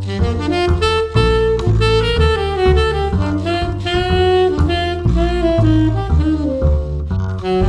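Instrumental jazz ballad: a slow melody line of long held notes over a walking series of low bass notes, with no singing.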